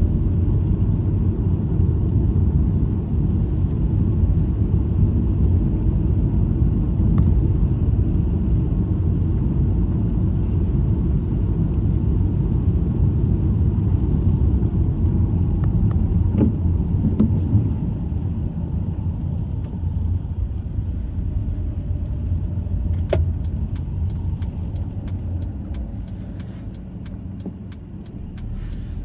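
Car cabin road noise while driving: a steady low rumble of tyres and engine. It gets quieter over the last ten seconds or so as the car slows to turn, with a few light clicks and rattles near the end.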